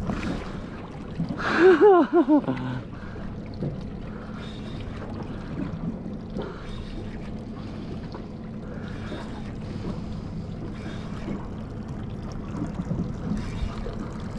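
A man's loud wordless shout, bending in pitch, about two seconds in; then the steady low hum of an idling outboard motor with water sloshing against the hull.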